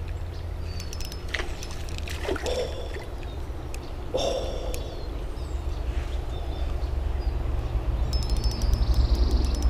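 Shallow creek water trickling and sloshing under a steady low rumble, with a few light clicks scattered through.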